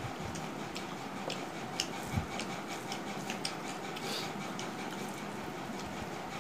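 Eating by hand from steel plates: fingers working rice against the plates, with scattered small clicks and light clatter of the plates and chewing, over a steady background hiss.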